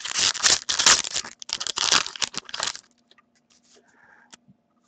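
Hockey card pack wrapper crinkling and tearing as it is ripped open and crumpled by hand, a dense crackle for about three seconds that then stops.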